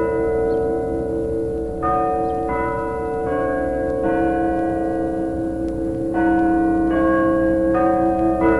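Chime bells playing a slow melody, a new note every half second to two seconds, each ringing on under the next.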